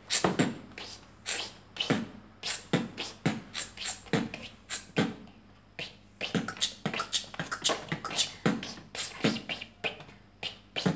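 Vocal beatboxing: a steady rhythm of mouth-made kick-drum thumps and sharp hi-hat and snare clicks, with a brief break a little past halfway.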